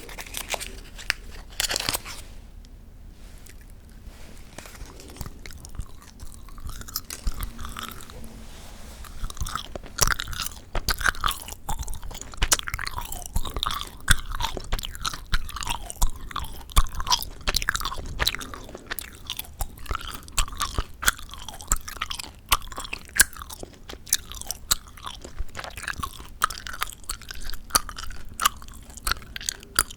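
Gum chewed close to the microphone: wet smacking and sticky clicks, fairly quiet at first and getting busier, with many sharp clicks from about a third of the way in.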